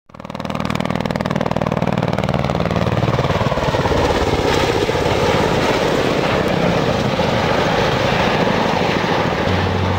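Kamov Ka-50 helicopter's coaxial rotors turning with a rapid, steady chop over engine noise, fading in at the start.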